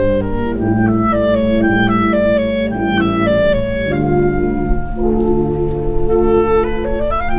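Concert wind band playing: clarinets and brass, a melody of quick stepping notes over held lower chords, with a short upward run near the end.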